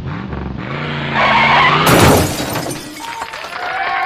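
A car engine revving, rising and falling in pitch, with a loud burst of tyre noise about a second in, then a high tyre squeal near the end, as in a drift slide.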